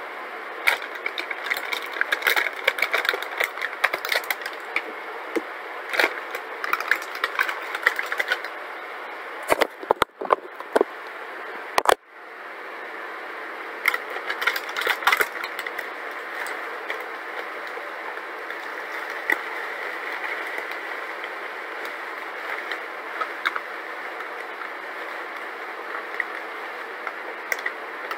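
Plastic oat bag crinkling and clicking as it is cut open with scissors and handled. Then dry instant rolled oats pour from the bag into a plastic storage container, a steady rustling hiss with scattered ticks.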